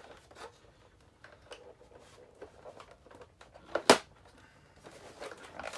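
Plastic toy parts and packaging being handled, with scattered light clicks and rustles and one sharp snap about four seconds in, as pieces are popped out of the packaging.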